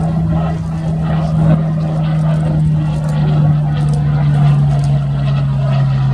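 Supermarine Spitfire's Rolls-Royce Merlin V12 engine droning steadily as the aircraft flies past, its pitch falling slightly during the pass.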